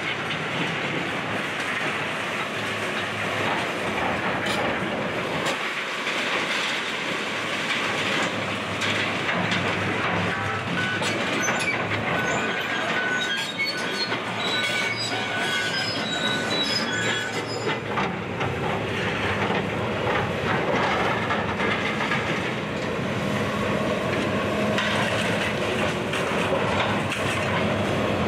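Excavator demolishing a building: the machine runs steadily under continuous crunching, scraping and rattling of debris, with short metallic squeals between about 12 and 18 seconds in.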